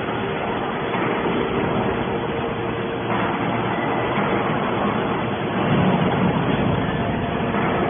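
Hydraulic scrap metal baler running: a steady mechanical hum and rush with a faint constant whine, growing louder for a moment about six seconds in.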